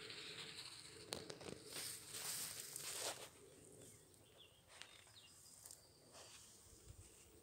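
Quiet outdoor ambience: rustling noise with a few sharp clicks for the first three seconds, then calmer, with a few faint, short, high bird chirps about four to five seconds in.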